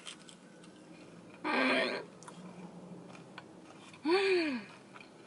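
A woman's wordless vocal reactions while eating a jalapeño popper: a short breathy murmur about a second and a half in, then one drawn-out 'ooh' that rises and falls in pitch about four seconds in.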